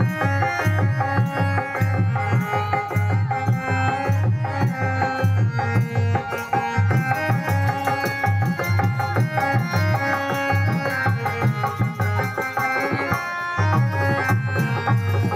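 Indian traditional music: drums play a fast, steady beat under a melody of long held notes. The drums drop out briefly near the end.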